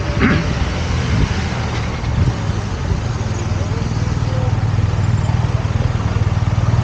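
Street traffic with a motor vehicle's engine running close by, its low, evenly pulsing rumble growing louder toward the end.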